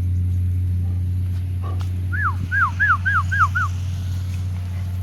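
A puppy giving six short, high yips or whimpers in quick succession about two seconds in, each rising then falling in pitch.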